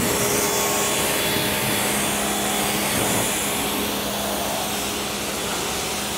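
Garden-hose spray nozzle spraying a steady hiss of water onto a car's body panels, easing off a little about four seconds in.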